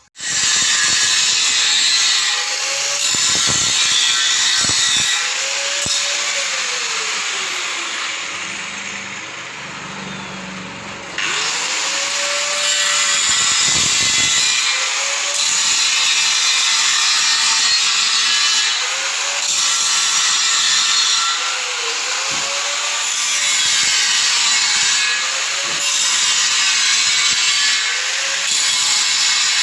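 Power tool cutting, loud and harsh, its pitch dipping under load and recovering about every two seconds; the sound jumps abruptly in level about eleven seconds in.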